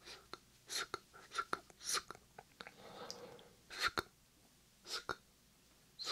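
Whispered "sksk" mouth sounds made close into a 3Dio binaural microphone: short hissing syllables about once a second, laced with sharp wet mouth clicks, with a softer breathy stretch about halfway through.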